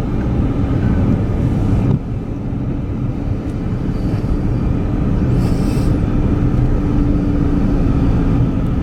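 Road and engine noise heard from inside a moving car: a steady low rumble with an even hum. The loudness drops suddenly about two seconds in, and there is a short hiss a little past halfway.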